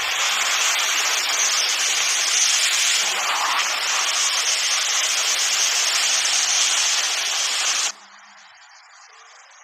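Heavy wind-driven rain in a severe storm: a loud, steady rushing hiss. It cuts off abruptly about eight seconds in, leaving a much fainter hiss.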